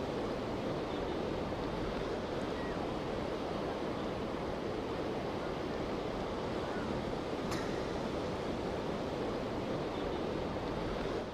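Steady rush of strong wind and choppy water, with wind buffeting the microphone.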